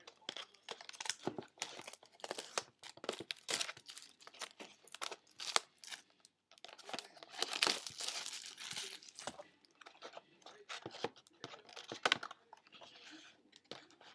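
Trading-card box packaging being torn open and crumpled: a string of crackling snaps and crinkles, with a longer tearing stretch about seven seconds in.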